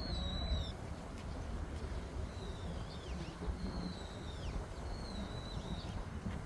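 A bird whistling a few clear high notes, some held briefly and some sliding down in pitch, over a steady low outdoor rumble.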